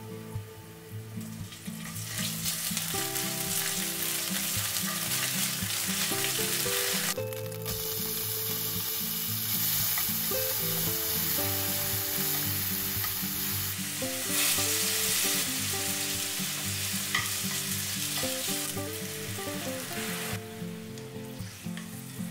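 Garlic and shepherd's purse greens sizzling in hot olive oil in a stainless steel frying pan while being stirred with a wooden spatula. The sizzle grows louder about two seconds in, is strongest in the middle and eases near the end.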